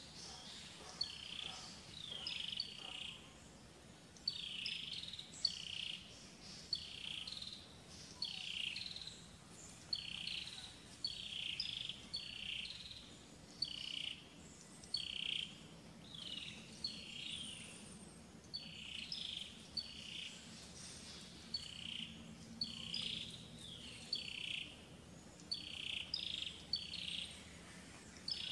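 High-pitched chirping calls, each a quick short sweep, repeating steadily about once a second.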